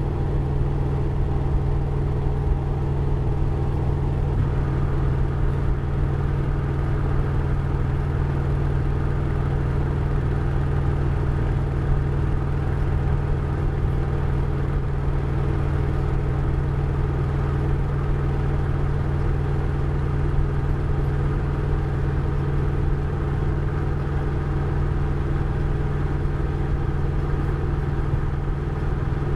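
Harley-Davidson Road Glide ST's Milwaukee-Eight 117 V-twin running at a steady pitch, with no revving.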